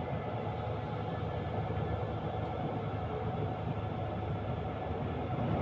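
Steady low drone of engine and road noise heard from inside a moving road vehicle.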